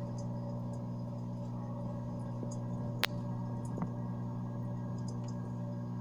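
A steady low hum of several unchanging tones, with a sharp click about halfway through and a fainter one just after.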